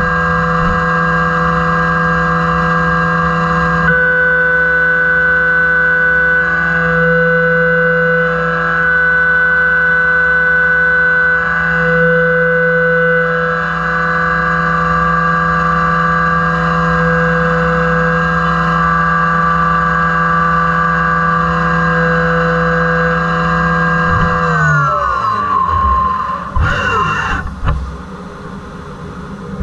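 CNC vertical machining center side-milling a 6061 aluminum block with a new three-flute carbide end mill, half an inch deep and 0.02 inch wide at 1280 sfm. It makes a steady high-pitched cutting whine over a lower hum. About 25 seconds in, the cut ends and all the tones slide down together as the spindle spins down, followed by a short burst of noise.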